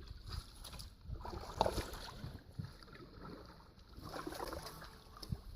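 Water splashing and trickling in two bouts about three seconds apart, as a paddle dips into the water beside a small fishing boat.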